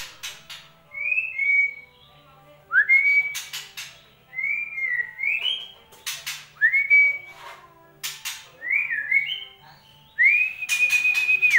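White-rumped shama (murai batu) singing: about six phrases of clear, upward-gliding whistled notes, some held steadily, mixed with harsh rasping notes and short pauses between them. This is lure song meant to set a silent caged shama singing again.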